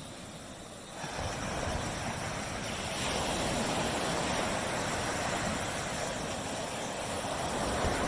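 Small tropical waves washing onto a beach: a steady rush of surf that swells about a second in as a wave breaks and runs up the sand.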